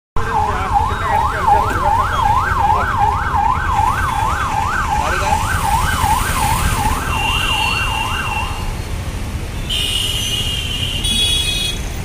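Vehicle siren in a fast rising-and-falling yelp, about three sweeps a second, which stops about three-quarters of the way through, over a steady low rumble of traffic.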